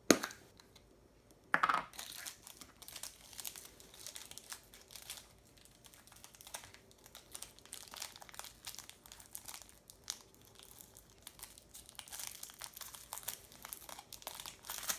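Wrapping crinkling and tearing in irregular bursts as a toy is unwrapped from a surprise egg, busier near the end. There is a loud sharp snap at the very start and another about a second and a half in.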